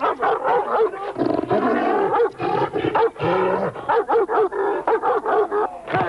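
German Shepherd snarling, growling and barking in a sustained attack, with many quick snaps.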